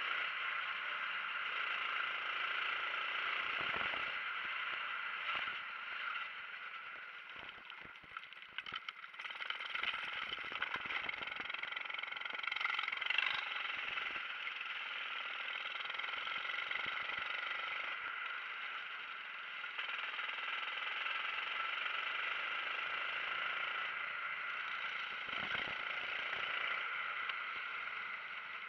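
Kart engine running under racing load, picked up by a camera mounted on the kart. It eases off and drops in level about seven seconds in, then picks up again, with a few short knocks and rattles from the chassis around then.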